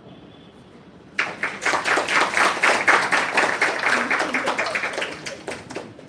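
Audience applauding, starting suddenly about a second in with dense clapping that thins out near the end.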